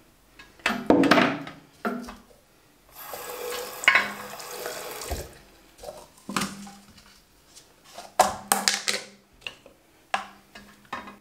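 Water running from a sink tap for a couple of seconds, with scattered knocks and clatter of items being handled in and around the sink.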